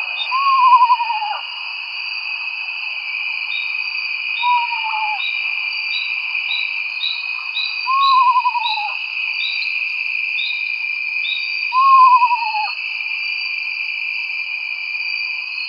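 Eastern screech owl giving its descending whinny: four quavering calls about a second long, each falling in pitch, a few seconds apart, the second one fainter. A steady high drone runs underneath, with a run of short high chirps in the middle.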